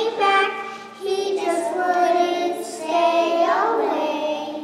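A small group of young children singing a song together, with two sung phrases, the second ending on a held note that fades near the end.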